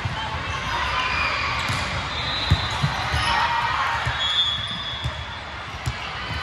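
Volleyballs being hit and bouncing on a hardwood gym floor, heard as irregular dull thumps, the loudest about two and a half seconds in. Behind them is the echoing background hubbub of a large sports hall.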